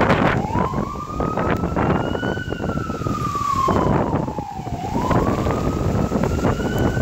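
Fire truck siren wailing in a slow rise and fall: one long climb and drop, then rising again near the end. Heavy wind noise buffets the microphone underneath.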